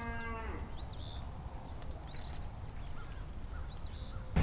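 Rural outdoor ambience: birds chirping, short rising-and-falling notes about once a second, over a low steady rumble. A brief pitched animal call, typical of a calf or cow bawl, trails off in the first half-second. A much louder low hum cuts in suddenly at the very end.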